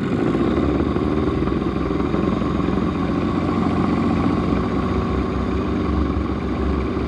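Boat motor running steadily.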